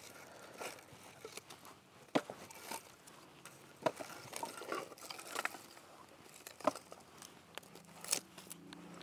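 Split firewood being handled and laid in a fire pit: a few separate sharp knocks and clacks of wood on wood as pieces are set down, with light rustling between them.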